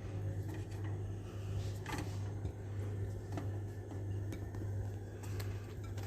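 A steady low hum with a few faint clicks and taps of handling as garlic-stuffed dried figs are set one by one into a couscous steamer.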